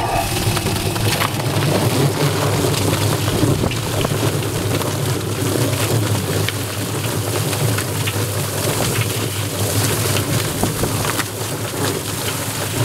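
Home-built Whizzbang-style chicken plucker switching on suddenly and running steadily: its electric motor hums as the rubber-fingered spinning plate tumbles the chickens against the fingers and the stainless steel drum, with a garden hose spraying water into the drum and many small slapping clicks.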